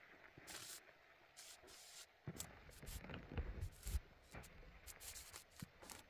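Irregular rustling and scraping with scattered sharp clicks, and a run of heavier dull thumps about two to four seconds in.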